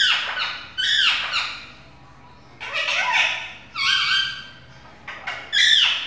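A rose-ringed parakeet squawking: about five loud, high-pitched calls in a row, each under a second, with short pauses between them.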